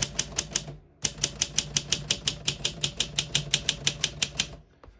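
Olympia SM4 portable manual typewriter being typed on: a rapid, even run of type bars striking the platen, about seven keystrokes a second, with a short pause about a second in. The keys all strike cleanly with none sticking.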